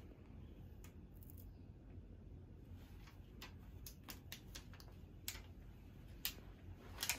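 Clear plastic carrier sheet of iron-on vinyl lettering being peeled off a T-shirt and handled: a scattered run of faint crackles and clicks, busiest in the second half.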